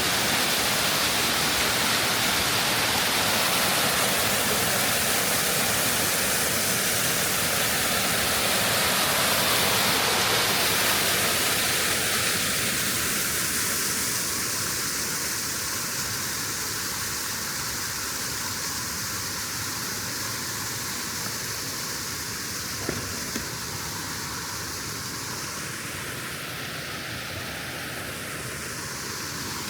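Steady rush of a flowing waterfall, an even hiss of falling water that grows somewhat quieter from about halfway through.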